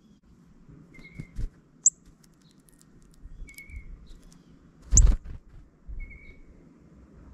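Small birds calling at a seed pile in the snow: a short whistled note repeated every two to three seconds and two sharp, very high chips. About five seconds in there is a loud, brief flutter of wings as a northern cardinal takes off close to the microphone.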